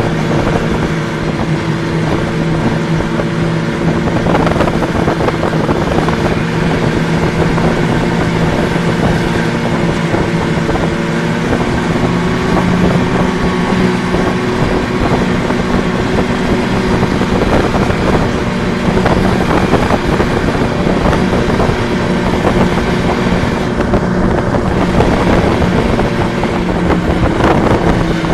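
Snowmobile engine running at a steady pitch under way, heard from the machine itself.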